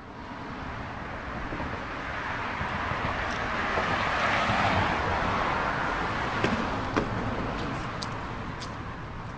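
Road noise of a passing vehicle that swells to a peak mid-way and then fades, with a few light clicks in the second half.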